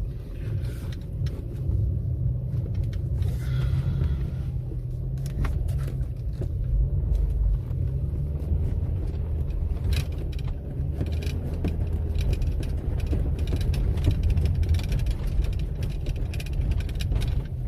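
Subaru XV driving through deep snow: a steady low rumble of engine and tyres, with scattered short knocks and clicks over it.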